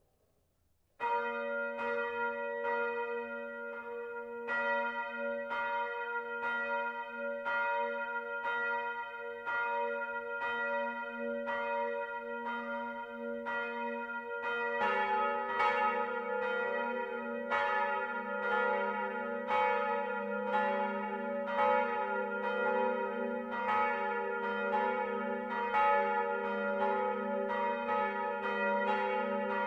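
Church bells of the Freudenstadt Stadtkirche's seven-bell peal ringing. One bell starts about a second in and strikes at a steady pace. A second, lower bell joins at about halfway, and the two ring together.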